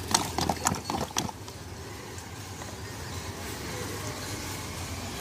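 Quick clicking of a stirrer knocking against a glass as a drink is stirred, stopping after about a second, then steady street background noise.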